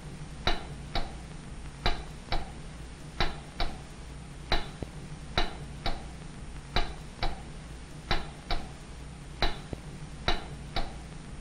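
Sharp mechanical clicks, about sixteen of them in an uneven rhythm, often in pairs about half a second apart, over a low steady hum.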